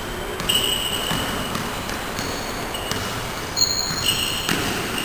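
Basketball dribbled on an indoor court, with sneakers giving short high squeaks on the floor several times and a few sharp knocks, all echoing in a large gym hall.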